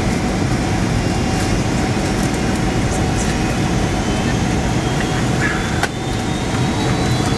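Steady cabin noise of a Boeing 767 in flight, heard from a window seat over the wing: a dense rush of jet engine and airflow, with a single short click near the end.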